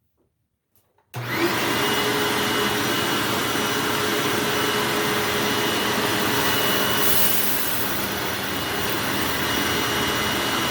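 Hoover WindTunnel bagged self-propelled upright vacuum switched on about a second in, its motor and brush roll running steadily on carpet. A steady whine sits over the rushing motor noise.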